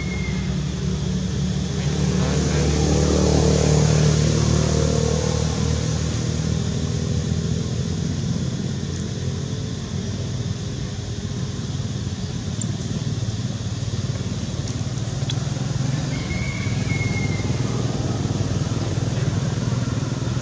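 A motor vehicle engine running steadily, growing louder for a few seconds about two to five seconds in as it passes by.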